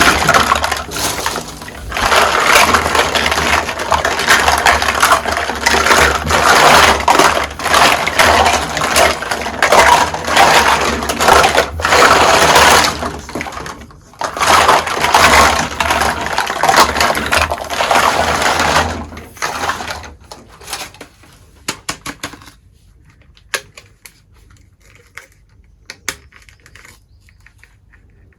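Close-up handling of toy packaging and small toy kitchen pieces: dense crinkling and rattling with many quick clicks for about twenty seconds, then sparser light taps and clicks.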